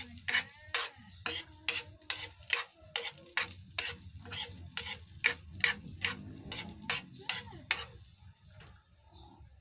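Spoon scraping and knocking against a frying pan about two to three times a second, stirring garlic sautéing in a little oil, with the oil sizzling underneath. The stirring stops about eight seconds in.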